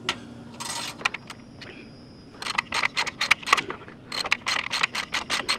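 Socket ratchet clicking in a quick run of strokes through the second half as it backs out a rusted exhaust flange bolt, with a wrench holding the other end; a single metallic click near the start.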